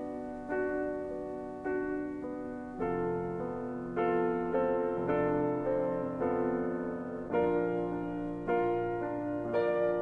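Slow, gentle piano music: soft chords struck roughly once a second, each note ringing and fading before the next.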